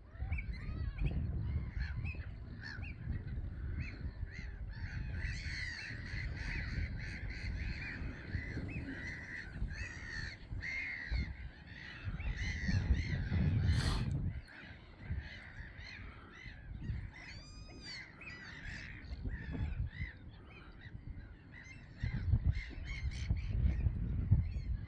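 A colony of gulls calling, many short arched calls overlapping continuously, over a low rumble. A single sharp click about fourteen seconds in.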